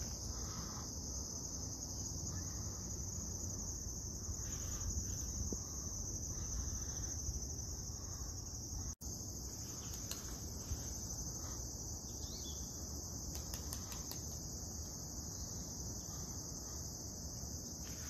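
Insects chirring in a continuous high-pitched drone over a low rumble. The whole sound drops out for an instant about nine seconds in.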